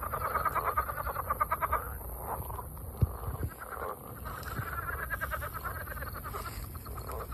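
A chorus of frogs calling: rapid pulsed trills in runs of one to two seconds, overlapping one another, with a single sharp knock about three seconds in.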